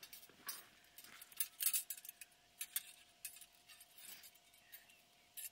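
Scattered light clinks, rattles and rustles of gear being handled while a pop-up hide tent is set up, loudest about one and a half seconds in.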